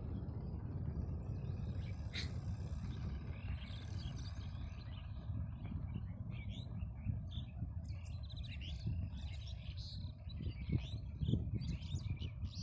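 Small birds chirping and twittering in many short, high calls that grow busier after the first few seconds, over a steady low rumble. One sharp click about two seconds in.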